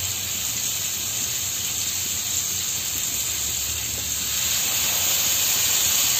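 Butter and marinated chicken pieces sizzling in a non-stick frying pan on low heat, a steady hiss. It grows louder about four seconds in as another marinated piece is laid into the hot butter.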